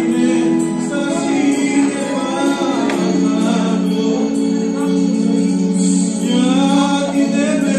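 A man singing into a microphone over instrumental accompaniment, amplified through the room's speakers.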